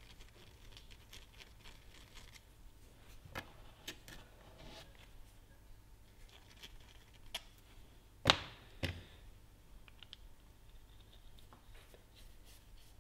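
Quiet handling of a small tool and a toothed aluminium pulley: faint scraping and a few light clicks, then two sharp knocks about half a second apart a little past the middle, the first much the louder, as of a tool being set down on the bench.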